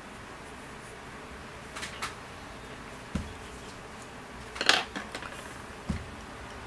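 Wooden coloured pencils being set down and picked up on a wooden tabletop: a handful of light clicks and knocks, the loudest a little under five seconds in, over a steady hiss.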